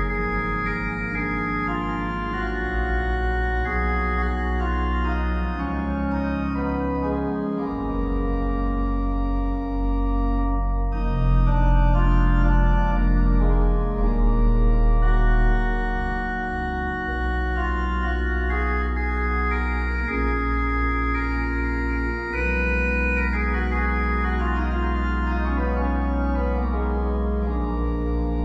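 Organ music: slow, sustained chords held for several seconds at a time over deep bass notes, swelling louder about halfway through.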